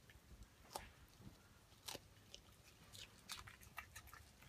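Chihuahua chewing a raw broccoli stem: faint, irregular crunching bites, coming closer together in the second half.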